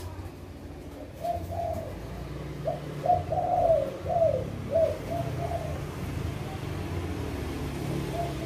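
Caged spotted doves (tekukur) cooing: groups of short arched coos, busiest from about three to five and a half seconds in, over a low steady hum.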